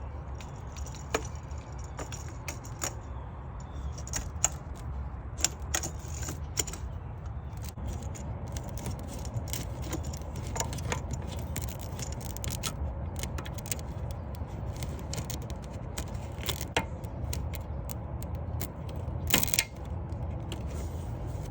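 Scattered light plastic clicks, knocks and rattles as a replacement EVAP purge valve and its hose are handled and worked into position in a car's engine bay, over a steady low background rumble.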